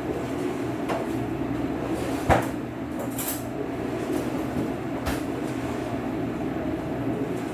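A steady machine hum with a few sharp knocks: one about a second in, a louder one just after two seconds, and another around five seconds. There is a brief hiss near the three-second mark.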